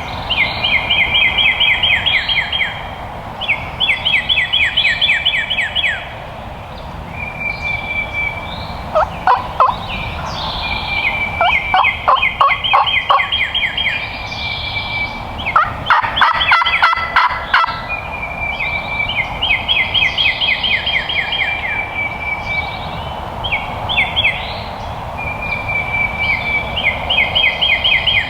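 Wild turkeys gobbling again and again, a rattling gobble every few seconds, with extra gobbles overlapping near the middle.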